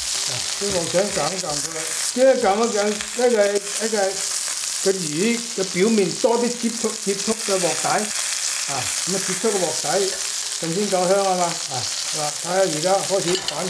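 Tilapia fillets pan-frying in oil in a stainless steel skillet, with a steady sizzle.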